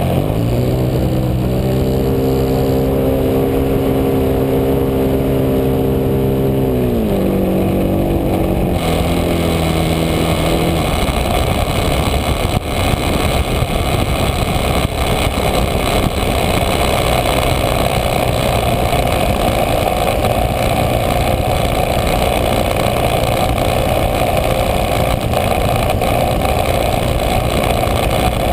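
Fuel-burning engine and spinning propeller of a Spacewalker radio-control model plane at high throttle through takeoff and climb-out, heard from a camera mounted right on its cowl. A steady engine tone drops in pitch about seven seconds in, and after about eleven seconds a steady rush of engine, propeller and wind takes over.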